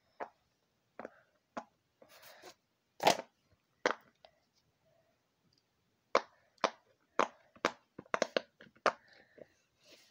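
Silicone pop-it fidget toy being pressed, its bubbles popping in short, sharp pops. A few scattered pops come first, the loudest about three seconds in, then a quicker run of about eight pops, roughly two a second, near the end.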